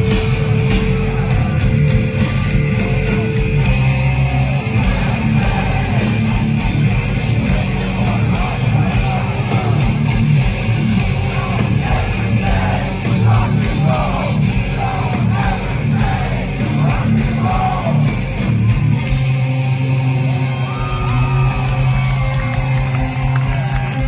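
A metalcore band playing live at high volume: heavy rock music with yelled vocals, heard from among the crowd.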